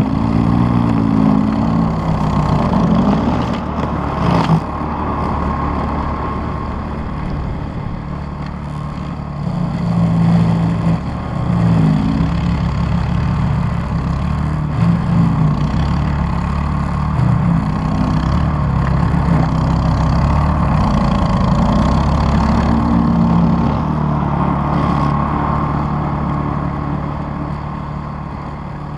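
Toro Power Clear 518 ZR single-stage snowblower's small four-stroke engine running under load as it cuts through deep, thick snow, its pitch wavering and dipping as it bogs and recovers. A brief sharp knock about four and a half seconds in.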